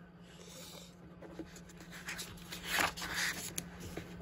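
Paper pages of a picture book being turned and pressed flat by hand. A soft rustle of paper, loudest in a couple of brisk swishes about three seconds in, over a steady low hum.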